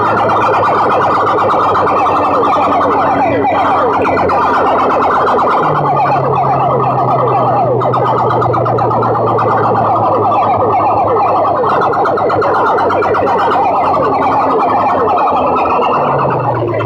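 Distorted electronic DJ music blasted through stacked aluminium horn loudspeakers: rapid, siren-like falling sweeps repeat over a steady low humming bass note that shifts pitch partway through.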